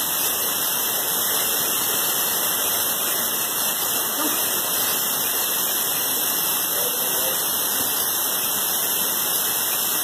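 Steady rushing of a waterfall cascading through a rocky gorge.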